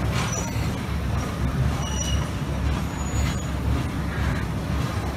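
Diesel engine of the Botchan train's replica steam locomotive idling with a steady low rumble, with a few short hisses of air.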